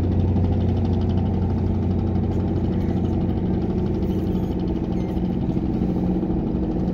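A boat's engine running steadily, a low, even drone with a fast regular beat.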